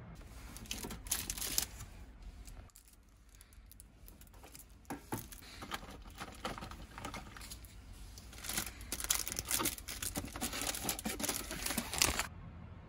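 Plastic and foil packaging rustling and crinkling as snack and supplement items are handled on a storage-cart shelf. The crinkling thickens into a dense run of crackles as a foil sports drink-mix sachet is handled, then stops abruptly near the end.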